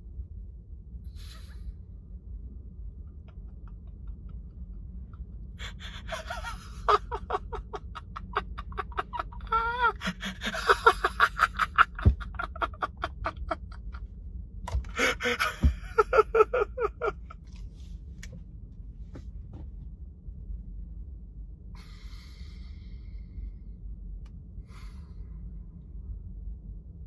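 A man's gasping, breathy vocal outbursts: two spells of quick, pitched pulses from about six to seventeen seconds in, over a low steady hum.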